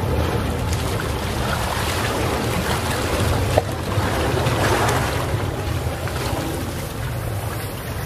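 Small waves of a calm sea washing onto the shore in a steady surf, swelling a little about halfway through.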